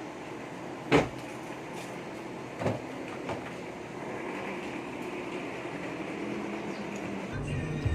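Motorcycle tricycle's engine idling steadily, with two sharp knocks about one second and nearly three seconds in, as of the sidecar's body being bumped.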